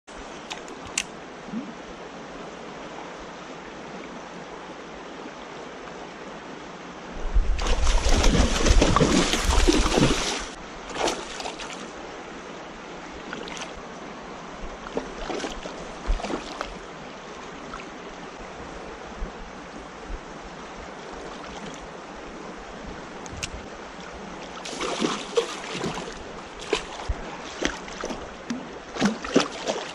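Steady outdoor water-and-wind noise, with a loud rushing burst about eight seconds in, a shorter one near the end, and scattered knocks and clicks.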